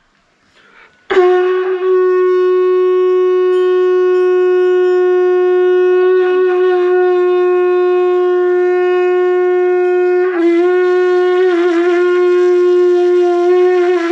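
Conch shell (shankha) blown in one long, loud, steady note that begins about a second in and wavers near the end. The shell is cracked, which the player says has spoiled its sound.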